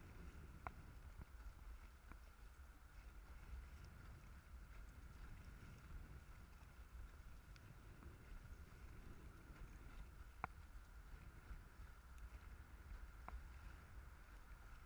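Faint low wind rumble on the microphone and water noise around a paddled dragon boat, with a few isolated sharp clicks.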